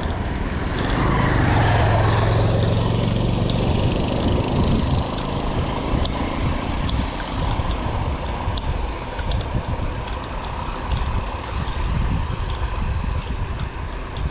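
A motor vehicle passes close by in the first few seconds, its engine swelling and then falling away. After it, steady wind rumble on the microphone from riding, with scattered light clicks and rattles.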